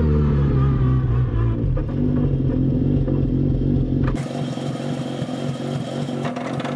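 Mazda two-rotor rotary engine of a Pro Formula Mazda racecar running. About four seconds in, the sound cuts abruptly to a different recording of the engine, with thinner bass and rapid, dense pulsing.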